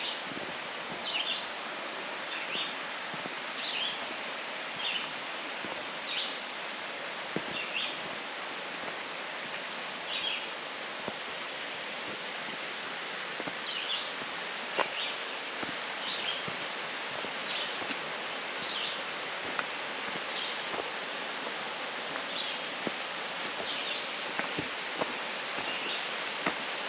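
Steady rushing water of a waterfall, with a bird repeating a short high chirp about every second or so and a few faint ticks.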